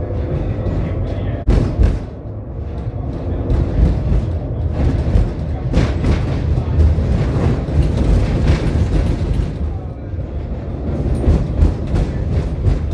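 Tram running along the track: a steady low rumble with repeated knocks and clatters from the wheels on the rails, and one sharp bang about a second and a half in.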